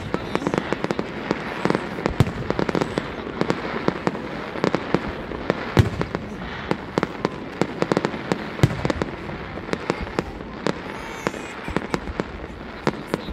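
Fireworks display: aerial shells bursting overhead in a rapid, continuous run of bangs and crackles, several a second.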